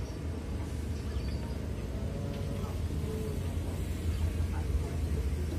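Steady low rumble of heavy diesel machinery: excavators and dump trucks working on an earthmoving site.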